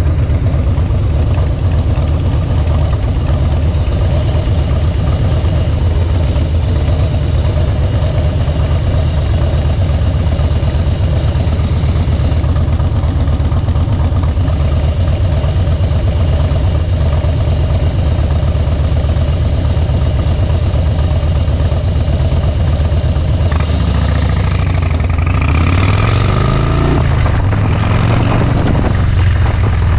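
2013 Harley-Davidson Softail Deluxe's V-twin, fitted with Vance & Hines Straight Shots slip-on mufflers, running steadily under way. Near the end the engine revs up, dips briefly, then revs up again.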